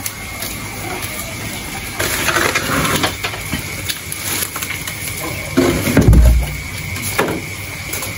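Hands rummaging through a pile of wet mangrove leaves and debris, with rustling and scattered clicks as a plastic crate is handled. A dull thump about six seconds in is the loudest sound.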